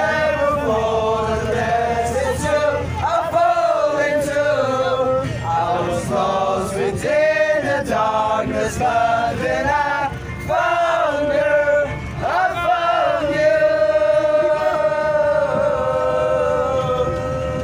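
A group of young men singing together loudly in unison, with a long held note near the end, over the low running noise of a moving bus.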